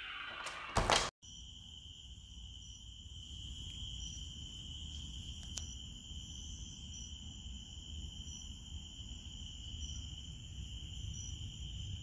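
A short clatter in the first second, then faint steady background noise: a low rumble with a constant high-pitched hum and short high chirps every second or so.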